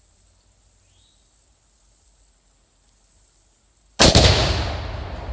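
About four seconds in, a 4-pound charge of Earth Shaker binary exploding target detonates, set off by a rifle shot: one sudden, very loud blast followed by a long, slowly fading low rumble. Before it there is only faint outdoor background.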